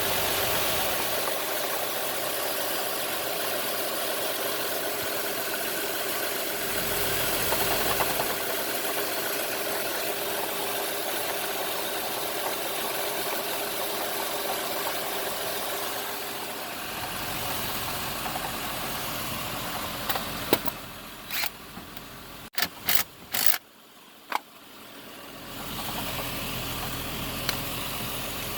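A 2010 Nissan Maxima's A/C compressor running in the engine bay, making the noise that the owner takes for a bad compressor or a bad compressor clutch, with no A/C cooling. The steady running noise goes on for about twenty seconds, then drops quieter for several seconds with a handful of sharp clicks before the steady running returns.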